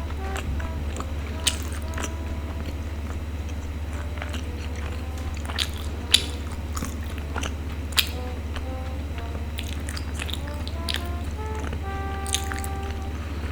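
Close-miked eating of a sticky glutinous rice ball: wet biting and chewing with scattered sharp smacking clicks. Light background music of short melodic notes plays underneath.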